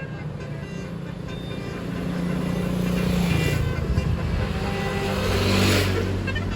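Bus engine running as it moves through, getting louder about two seconds in, with a rush of hiss about five to six seconds in.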